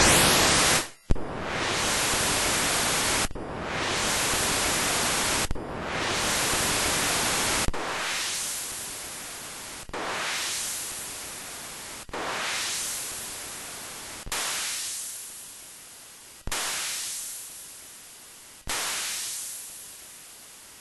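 MOS 6581 SID sound chip playing its noise waveform: a series of about nine hiss bursts, one every two seconds or so. The first few hold steady, and the later ones fade away, thinning to a high hiss as they die.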